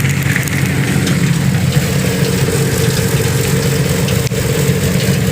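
Silo unloader running steadily with a continuous low mechanical hum, freshly fitted with a new bearing and running smoothly, 'much better'.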